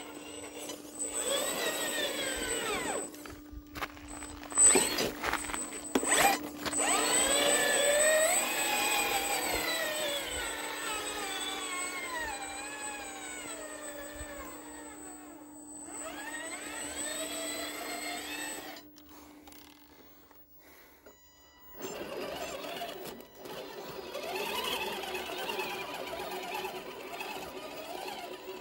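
Small electric motors and geared drivetrains of RC rock crawlers whining, rising and falling in pitch with the throttle as the trucks crawl, with a couple of sharp knocks about five and six seconds in.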